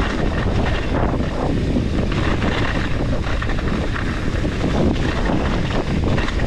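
Mountain bike riding down a trail, with wind buffeting the microphone and a busy rattle that is the bike's chain slapping against the frame.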